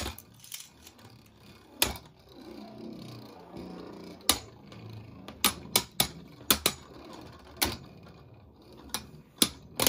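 Two Beyblade Burst spinning tops, Judgment Joker and Glyph Dragon, clashing in a plastic stadium: about a dozen sharp, loud clacks at irregular intervals, bunched in the middle and near the end, with a faint low whir of the spinning tops between hits.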